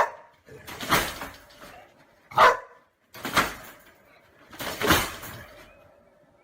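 A dog barking: about five separate barks spread over a few seconds.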